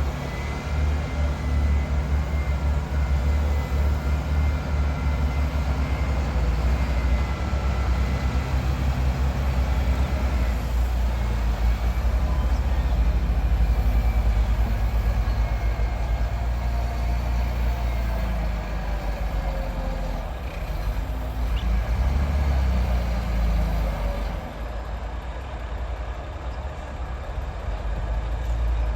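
Heavy diesel engine of earthmoving machinery or a big truck running, a loud steady low drone, easing off for a few seconds near the end.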